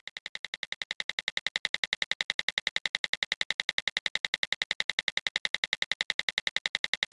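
Rapid, even clicking, about ten clicks a second, which fades in and then holds steady: a ticking sound effect.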